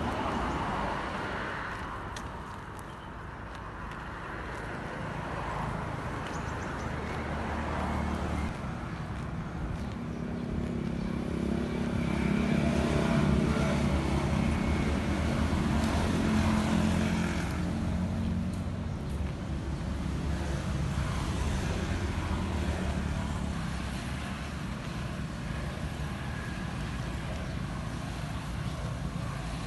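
Low, steady outdoor rumble of road traffic, swelling to its loudest about halfway through as a vehicle goes by.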